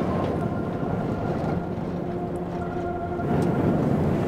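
BYD YangWang U8 SUV ploughing through deep sand: a rushing vehicle and sand noise that grows louder near the end. Steady held music notes sound under it.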